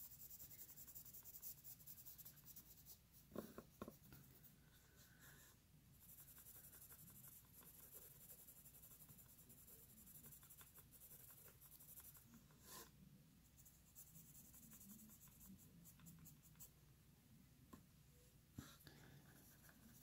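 Faint scratching of a Prismacolor coloured pencil shading across colouring-book paper, with a few faint clicks.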